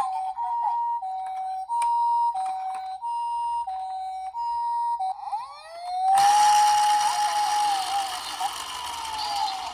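Japanese ambulance two-tone siren alternating high and low "pee-poh" tones, each about two-thirds of a second long. About six seconds in, a louder wailing siren takes over: it rises, holds, then slides down over a loud rushing noise.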